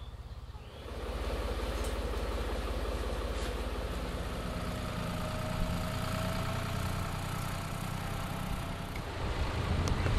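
Small tractor's engine running steadily as it tows a loaded kayak trailer, growing a little louder near the end.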